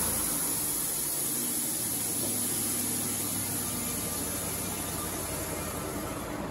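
Wood-Mizer LT35 band sawmill running: a steady engine hum under a hiss-like noise, gradually easing off.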